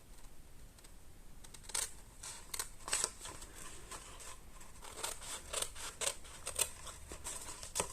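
Scissors snipping through cardstock, a series of short irregular cuts as small pieces are trimmed away.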